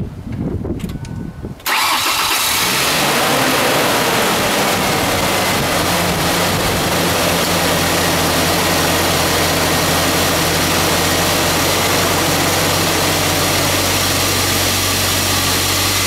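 Car engine cranking briefly on the starter, then catching about a second and a half in and settling into a steady idle. It runs smoothly with no clanking or ticking, its intake manifold runner flaps removed.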